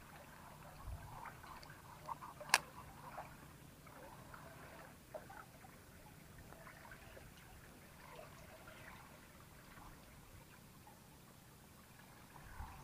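Quiet riverside ambience with faint scattered ticks and one sharp click about two and a half seconds in.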